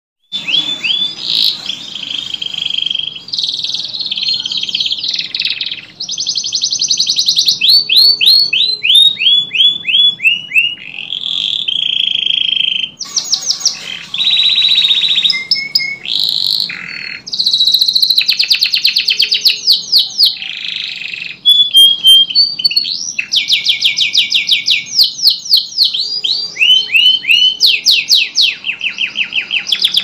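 Domestic canary singing: high-pitched song of fast trills and rolls of rapidly repeated notes, one phrase after another with only short breaks.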